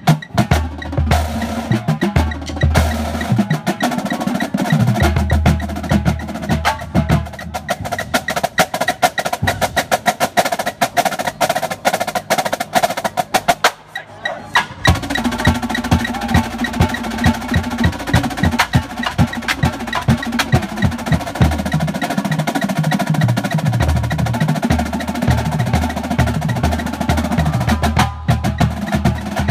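Marching drumline of snare drums and bass drums playing a drum feature: fast, dense snare strokes over low bass drum notes. The playing thins briefly about halfway through, then the full line comes back in.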